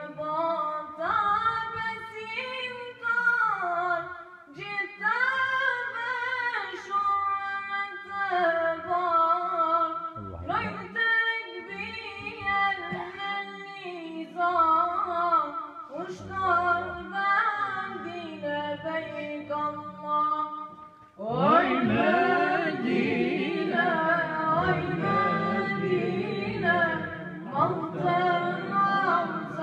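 A young male voice singing an ilahi, an Islamic devotional song, unaccompanied, in long wavering phrases with short pauses for breath. About two-thirds of the way through, other voices join in and the singing grows louder and fuller.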